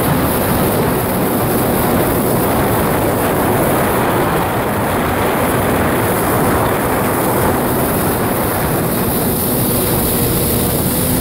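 Steady, loud rushing noise of wind over open river water. A faint steady hum shows near the start and again near the end.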